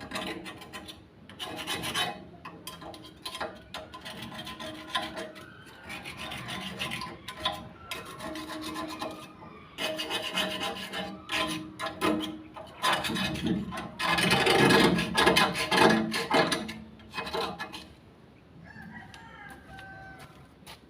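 Rasping scraping and rubbing strokes on a metal stock pot during its cleaning and repair, uneven and repeated, heaviest about two-thirds of the way through.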